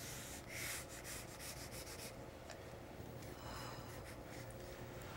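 Pencil scratching across sketchpad paper in quick drawing strokes, faint, the strokes densest in the first couple of seconds.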